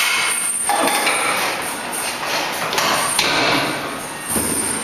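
A series of metallic clanks and knocks from a plate-loaded hack squat machine as its sled is racked and the lifter climbs out of the pads.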